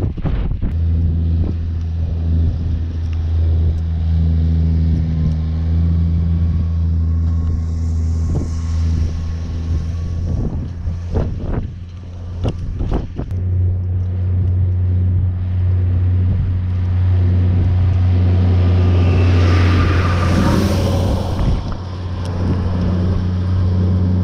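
Tractor engine running steadily with a low, even note that fades back for a few seconds in the middle. A louder rushing swell builds and falls away about twenty seconds in.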